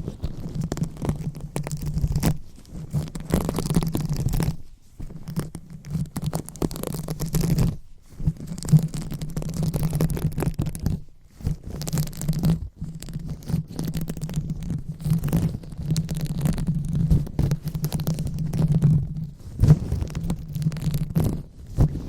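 ASMR brain-massage sounds: hands rubbing and massaging the microphone, giving muffled, scratchy rubbing strokes with brief breaks every few seconds.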